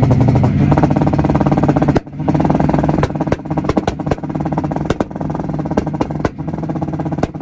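Import car engine held against a two-step launch-control rev limiter, a steady buzzing note broken by rapid, irregular pops and bangs from the exhaust. It cuts out for a moment about two seconds in, then picks straight back up.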